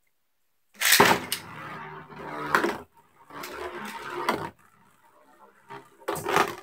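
Beyblade metal spinning tops, Fang Leone and Pegasus, launched into a plastic stadium with a sharp rip about a second in, then whirring and scraping as they spin and clash in the bowl. A loud clatter near the end as a top is grabbed from the stadium.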